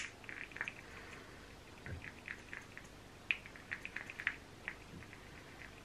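Plastic pump on a new bottle of Body Collection Illuminating Foundation being pressed again and again on its first use: one sharp click at the very start, then a string of small, irregular clicks and squeaks.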